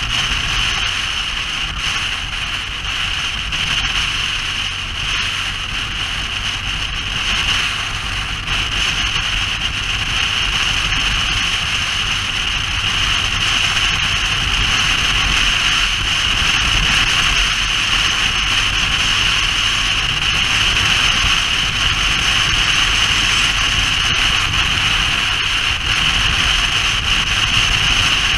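Motorcycle on the move: steady engine rumble under heavy wind and road noise, getting a little louder from about halfway through.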